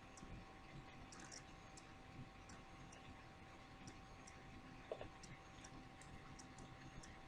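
Near silence: room tone with a faint steady hum and scattered faint small clicks.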